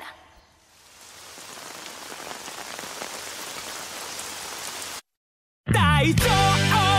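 Steady rain falling, fading in over the first second or two and then cut off abruptly. After a brief silence, an upbeat theme song with a sung vocal starts, louder than the rain.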